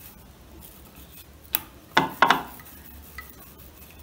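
Wooden rolling pin rolling out a puri on a rolling board, knocking sharply against the board three times around the middle, with a fainter tap a second later.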